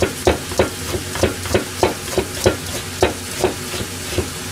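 A steel kitchen knife cutting a carrot into thin strips on a plastic cutting board, knocking down on the board about three times a second. Under it a pan of soffritto sizzles steadily on the heat.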